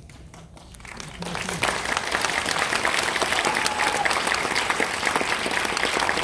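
Audience applauding in a cinema: after a brief lull the clapping swells about a second in and carries on steadily as a dense patter of many hands.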